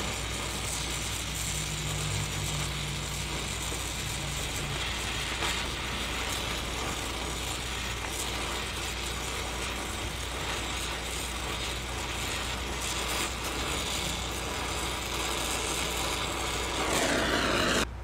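Welding on a joint of a square-tube steel frame: the torch runs continuously with a steady hiss and fine crackling.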